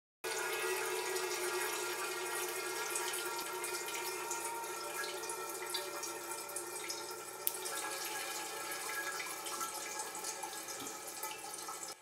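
Water falling in thin streams from a Kelvin water dropper's nozzles into metal cans, a steady trickling splash, with one sharp click about seven and a half seconds in.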